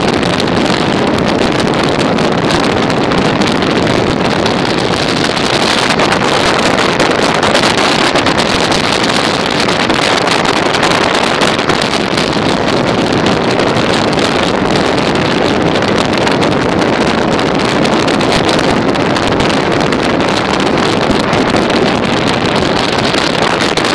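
Steady, loud running noise of a Czech Railways passenger train travelling at speed, heard from on board, with wind noise on the microphone.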